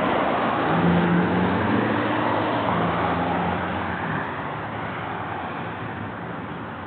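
A car engine running and driving off, gradually fading out.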